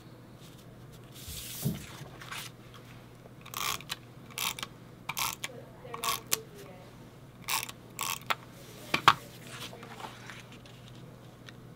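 Short rasping strokes of a hand-held adhesive tape runner laying glue on the back of paper mats, mixed with paper sliding and rustling, and a sharp tap late on.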